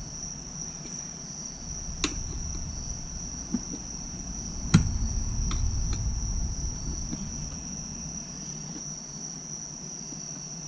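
Crickets trilling steadily and high-pitched, with a few sharp clicks and knocks from a dirt bike tire being worked onto its rim. The loudest knock comes about halfway through.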